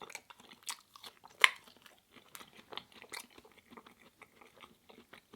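Close-miked chewing: irregular wet mouth clicks and crunches, with one sharp, loud crunch about a second and a half in.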